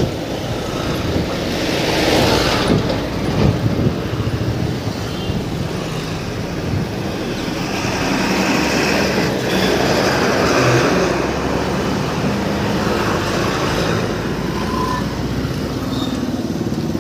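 Road traffic heard from a moving bicycle: vehicle engines running close by over steady road noise, with a louder rush of noise about two seconds in.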